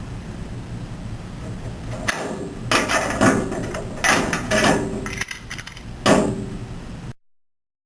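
Master Lock combination padlock being pulled open and handled: a run of about seven sharp metallic clacks and rattles from the shackle and lock body, starting about two seconds in. The sound cuts off suddenly near the end.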